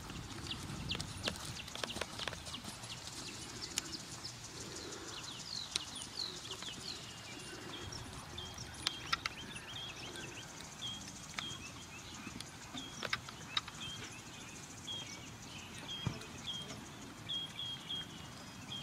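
A horse's hoofbeats on sand arena footing, an uneven run of soft knocks. From about halfway in, a bird chirps repeatedly, a short high note about twice a second.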